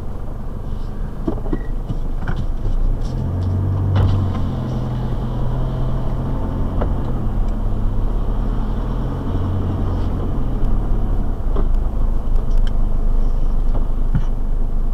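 A four-wheel-drive's engine running at low revs, heard from inside the cabin, its note rising and falling a little. Occasional knocks and rattles sound over it.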